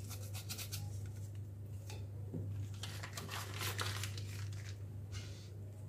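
Small vanillin sachet being torn open and its paper and foil packaging crinkled by hand, an irregular run of short crackles.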